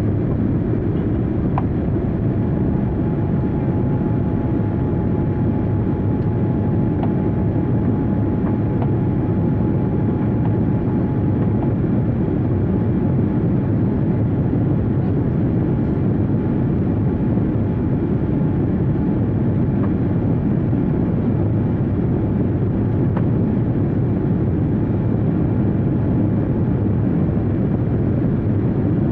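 Steady low drone of a jet airliner cabin, engine and airflow noise with no change in level.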